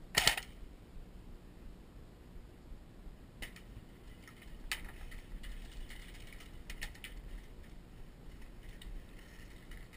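A short, sharp burst of fire from an airsoft rifle just after the start, followed by scattered faint clicks and knocks.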